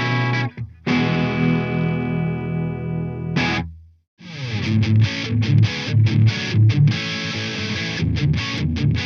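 Tokai Love Rock LS-136F electric guitar with Alnico 5 PAF-style humbuckers: a clean-tone chord rings out and fades, followed by a short strum. After a brief silence about four seconds in, the guitar switches to an overdriven tone and plays a rhythmic riff with short stops.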